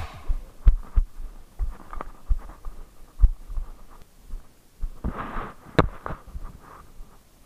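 Footsteps of a person walking over rubble and dry undergrowth, heard through a body-worn action camera as irregular dull thumps, with rustling about five seconds in and one sharp click or snap just after.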